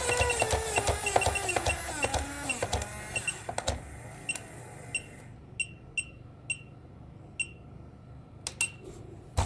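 A small toy alarm clock's electric motor whining and winding down, falling in pitch over the first couple of seconds. Its hammer strikes the gong rapidly at first, then slower and further apart as it stops. After that, only a few single ringing dings are heard, spaced irregularly.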